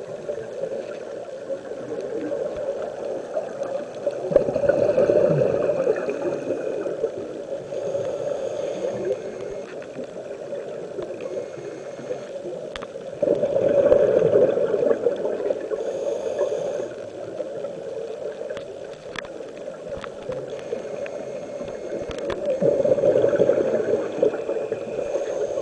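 A scuba diver breathing through a regulator underwater: three rushes of exhaled bubbles gurgling, about nine seconds apart, with a fainter hiss between them.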